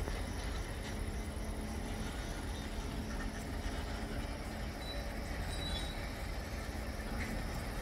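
Diesel locomotive running steadily at a distance: a constant low rumble with a steady hum over it.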